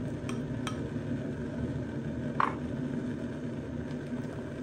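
Stock boiling hard in a pot on a gas stove: a steady low rumble of bubbling. A few light clicks sound as a metal ladle touches the pot, the loudest about two and a half seconds in.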